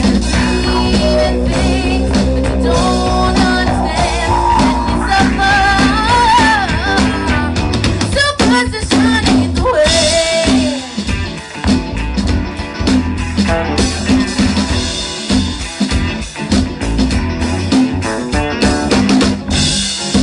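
Live band playing blues-rock through a PA: electric guitars, bass and drum kit, with a singer's voice over them.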